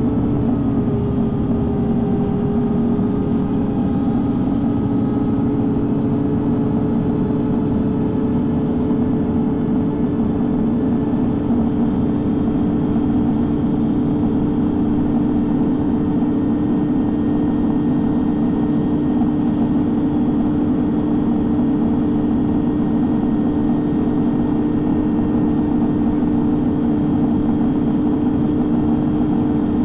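MAN NG 323 articulated city bus with its six-cylinder diesel, under way at a fairly even speed: a steady engine and drivetrain hum with a constant whine, its pitch rising slightly in the first few seconds and then holding level.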